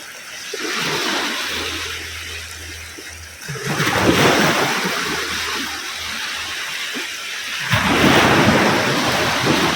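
Ocean waves breaking on a beach, three waves in turn, each one crashing suddenly and then washing out in a long rushing hiss.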